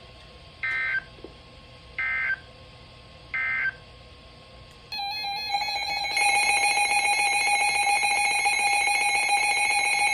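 Three short, identical warbling data bursts about a second and a half apart: the Emergency Alert System end-of-message code closing a severe thunderstorm warning. About five seconds in, a new electronic signal starts, and from about six seconds it settles into a loud, steady alert tone that opens the next warning.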